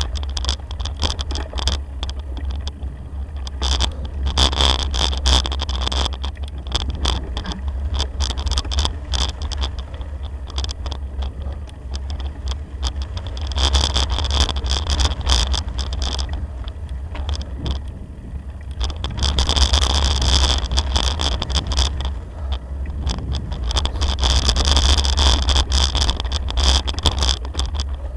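A bicycle rolling along a gravel track: the tyres crunch and rattle over loose stones, with many small clicks over a deep, constant rumble from vibration and wind on the bike-mounted microphone.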